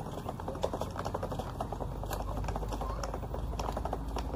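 Wheels of a child's pushchair rattling and clicking rapidly as it is pushed along a rough concrete path.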